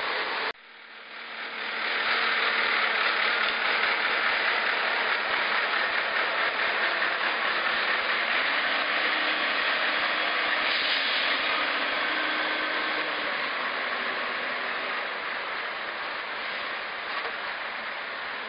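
Backhoe loader's diesel engine running close by, a steady engine noise that swells in after a second and fades a little near the end as the machine moves off.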